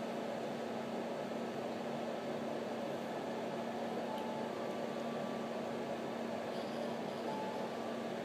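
Steady low hum with hiss: indoor room tone, unchanging throughout.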